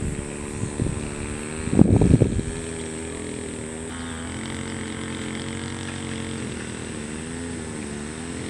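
An engine running steadily, its hum wavering slightly in pitch now and then, with a couple of loud gusts of wind on the microphone in the first two and a half seconds.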